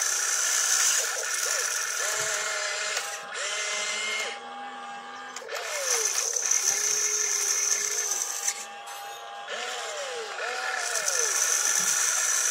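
Small electric motors and gears of an RC excavator whining as it digs, swings and dumps. The pitch glides up, holds and falls with each move, and there are two short pauses between moves.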